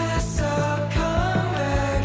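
Background music: a rock song with sung vocals and a steady drum beat.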